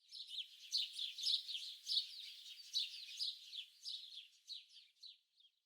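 Birds chirping: many quick, high, overlapping chirps, faint, that fade out near the end.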